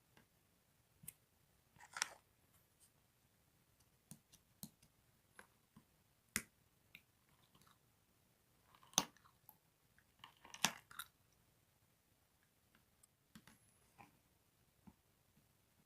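Clear slime with toppings being squeezed and stretched by hand: faint, scattered sticky pops and crackles, with a few louder clusters of clicks.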